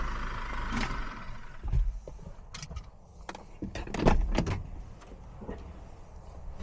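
A vehicle pulling up, its low engine rumble fading away over the first couple of seconds, followed by several short knocks and clunks, the loudest about four seconds in.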